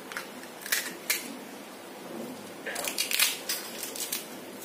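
Crisp fried pani puri shells crackling as they are pressed and broken between the fingers: two single sharp cracks in the first second or so, then a quick cluster of crunches about three seconds in.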